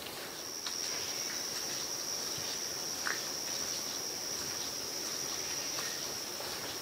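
An insect trilling: one steady, unbroken high-pitched trill that starts just after the beginning, with a few faint ticks and one short faint call about three seconds in.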